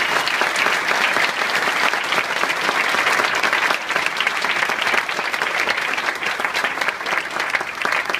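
An audience applauding: many people clapping at once at a steady level.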